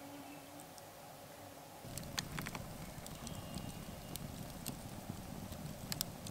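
A fly buzzes faintly. About two seconds in, a wood campfire takes over, burning with a low rumble and sharp crackles and pops: a quick cluster at first, then scattered single pops.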